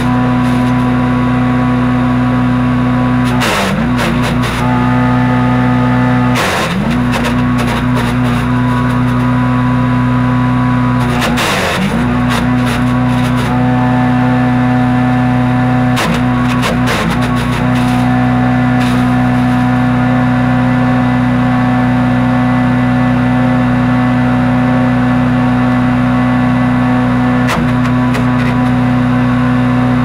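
Harbor Freight Predator wood chipper's small single-cylinder gas engine running steadily at full throttle. Its pitch sags briefly about six times as branches are fed in and it bogs under load, with short crackles of wood being chipped.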